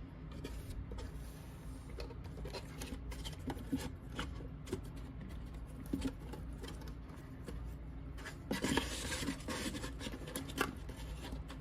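Hands folding and smoothing a strip of craft vinyl onto a foam board box: soft rubbing, scratching and small taps, with a louder rustling rub about nine seconds in.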